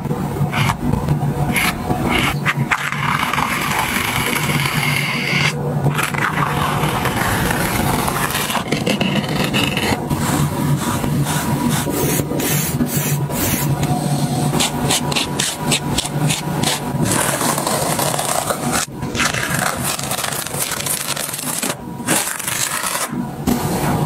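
Metal palette knife scraping and spreading thick acrylic paint across a canvas in repeated strokes of varying length.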